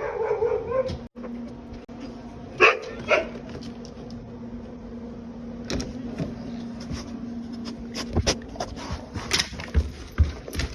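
Dog whining and yipping: a drawn-out cry at the start, then two sharp barks about two and a half and three seconds in. Scattered knocks and clicks follow near the end.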